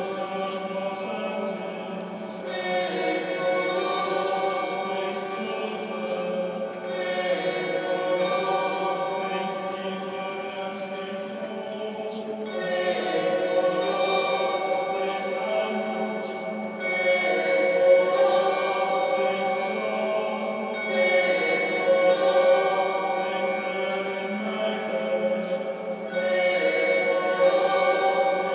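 Background choral music: voices chanting in long held notes, the harmony changing every few seconds.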